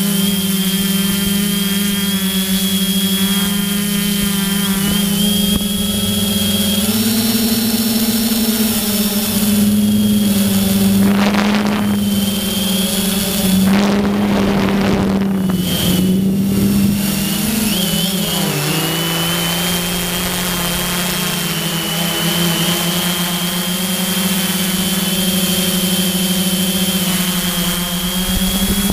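Motor and propellers of an FPV model aircraft running steadily in flight, picked up by the camera it carries: a hum with a high whine over it, which rises in pitch about seven seconds in and drops back after about eighteen seconds as the throttle changes. Rushing noise washes over it twice in the middle.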